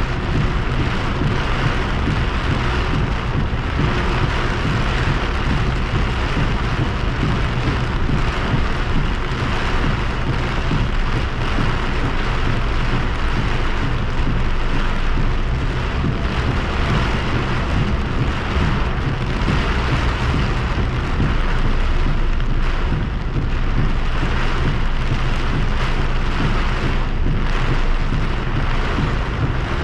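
Heavy rain pelting a car's windshield and roof, heard from inside the car, with a steady low rumble underneath.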